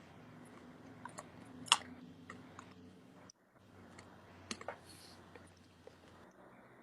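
Scattered small clicks and taps, the sharpest about a second and a half in, over a faint low hum.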